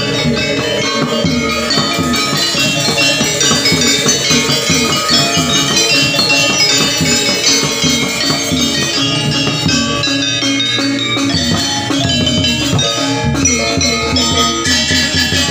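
Balinese gamelan ensemble playing: bronze metallophones struck with wooden mallets in dense, fast patterns of ringing notes, over kendang drum strokes.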